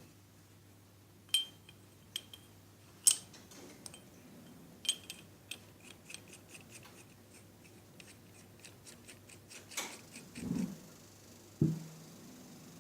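Small metal parts clinking and tapping against each other, a handful of sharp ringing clicks and then a quick run of lighter ticks, with two duller knocks near the end. A faint steady low hum runs underneath.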